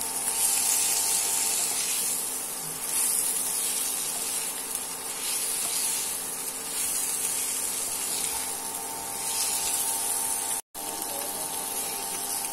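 Pointed gourd pieces sizzling in hot oil in a nonstick wok, turned over with a wooden spatula in a few sweeps, with a steady faint hum from the induction cooktop underneath. The sound drops out for a moment near the end.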